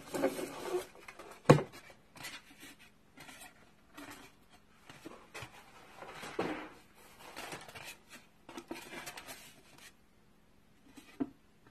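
Handling noise of a glass picture-frame box with a foam base being pressed and moved on a tabletop: irregular scraping and rustling, with one sharp knock about one and a half seconds in.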